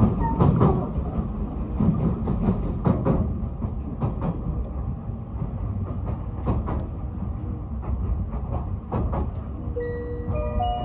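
Odakyu Romancecar express train running, heard from inside the carriage: a steady low rumble with the wheels clicking over rail joints now and then. Near the end an onboard chime starts, the signal before the arrival announcement.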